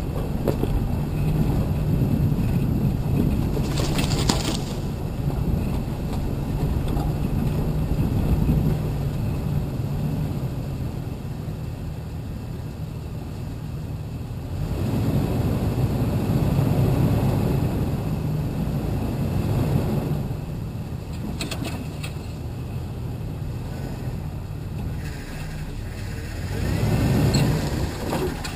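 A vehicle's engine running as it drives slowly over dirt trails, swelling louder twice as it pulls up slopes. A few short knocks or clicks come through, once near the start and once past the middle.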